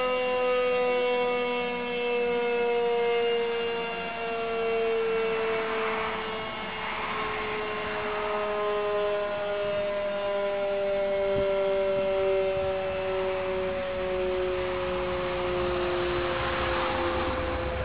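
Sachsenwerk mechanical siren winding down: its tone falls slowly and steadily in pitch as the rotor coasts, with a second tone sounding above it from partway through. A rushing noise swells twice, in the middle and near the end.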